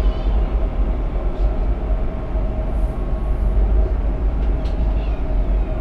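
CRH high-speed train running, heard from inside the passenger car: a steady deep rumble with a faint steady hum and a few light clicks.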